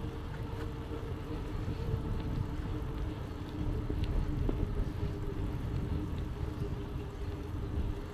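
Steady low rumble of a bicycle being ridden, picked up by a handlebar-mounted camera: tyre and road noise with wind buffeting the microphone, and a steady hum underneath with a few faint ticks.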